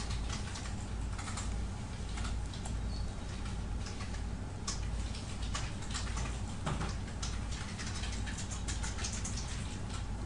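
Computer keyboard typing: short irregular clicks that come thicker near the end, over a steady low hum.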